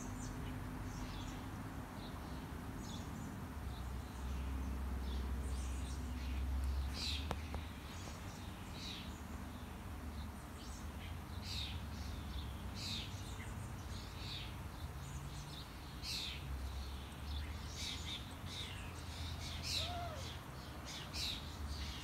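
Small birds chirping, many short high calls coming irregularly throughout, over a low steady rumble.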